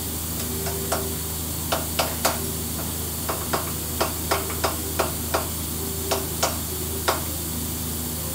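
Steady hum of a running milling machine, broken by a dozen or so short sharp clicks at irregular intervals while the part on its table is worked.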